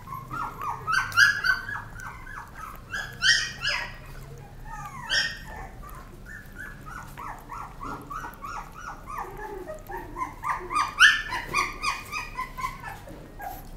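A young puppy squeaking and whining in a rapid run of short, high-pitched cries, with several louder yelps in between.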